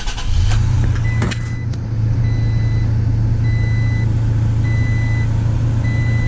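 2018 Toyota Tacoma engine just started: it runs up in the first half second, then idles steadily. A dashboard warning chime beeps about once every second and a bit throughout.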